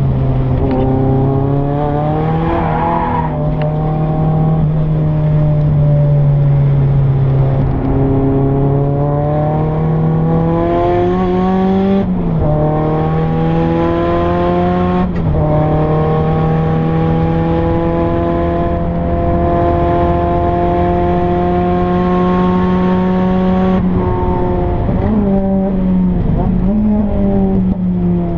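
Nissan 200SX S14a's turbocharged SR20DET four-cylinder, heard from inside the cabin under hard acceleration on track: the engine note climbs in pitch, breaks at several gear changes and climbs again, then drops in pitch near the end as the car slows.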